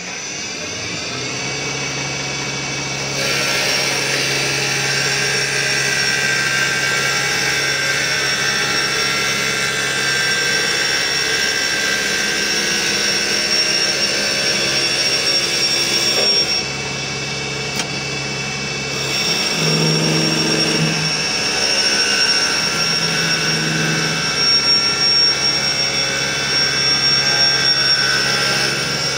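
Automatic wood copy lathe running: the spindle motor's steady whine with the rasp of the knife shaving a spinning wooden chisel-handle blank. It grows louder over the first few seconds and drops briefly a little past the middle.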